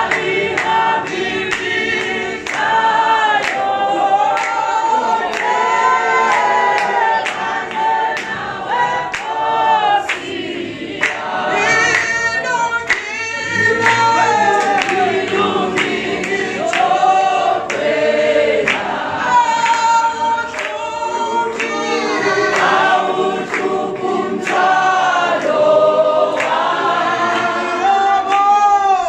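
Church worshippers singing a gospel song together as a choir, several voices in harmony. A regular sharp beat keeps time.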